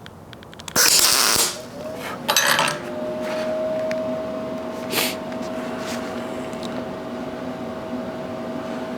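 Two short MIG welding tack bursts on quarter-inch steel plate, each a crackling hiss, the first about a second in and the second a second and a half later. A steady whine then sets in and holds.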